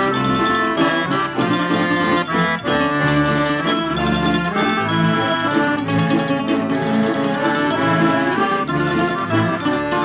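Instrumental passage of a Slovak folk song: an accordion leading a small band with strings and a regular bass line.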